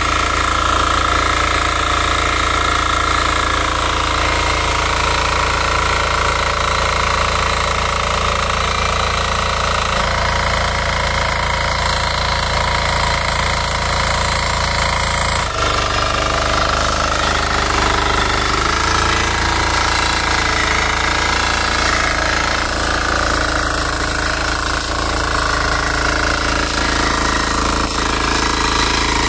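KisanKraft 350D mini power tiller's single-cylinder air-cooled diesel engine running steadily while its rotary tines churn the soil. The sound shifts abruptly twice.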